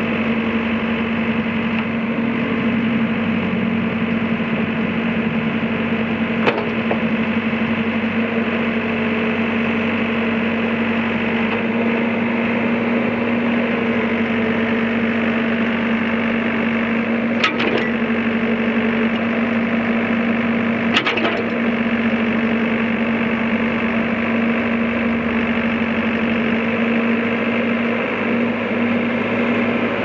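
Komatsu WB140-2N backhoe loader's diesel engine running steadily while the backhoe boom is worked, with a few short knocks partway through.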